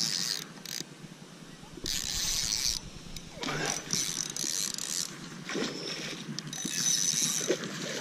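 Fishing reel being cranked in several short spurts of whirring, winding in line on a hooked pike.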